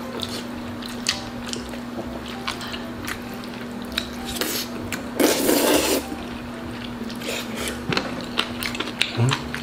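Close-miked eating sounds over bowls of jjajangmyeon: chopsticks and cutlery clicking against dishes, with chewing between. About five seconds in comes a loud noisy eating sound lasting just under a second, under a steady low hum.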